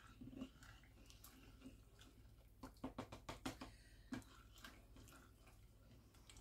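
Faint sounds of a spoon stirring a thick, wet cornmeal-and-liver mixture in a small enamel saucepan, with a quick run of light clicks against the pot around the middle.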